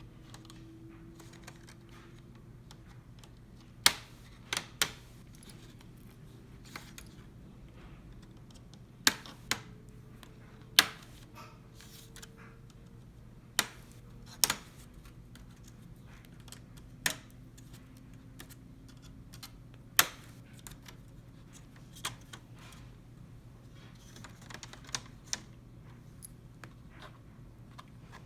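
Plastic snap tabs of an HP laptop's screen bezel clicking loose one by one as the bezel is pried off. About fifteen sharp, irregular clicks, often several seconds apart, over a low steady hum.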